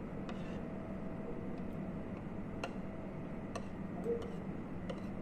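A few scattered, irregular light clicks over a steady low hum.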